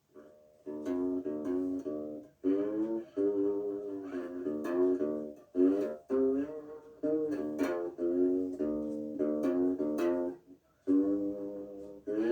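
A tuned-down cigar box string instrument played acoustically: plucked notes in short phrases, several sliding up or down in pitch, with brief breaks between phrases.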